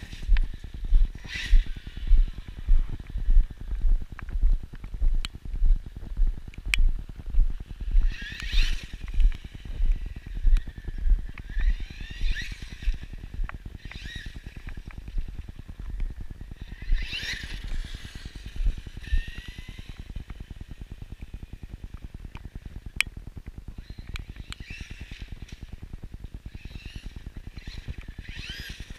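Electric motor and drivetrain of an Axial Yeti XL RC truck whining in short bursts as it accelerates and lets off, the pitch rising and falling with each burst. Under it, steady footsteps of someone walking, about three every two seconds, stop about twenty seconds in.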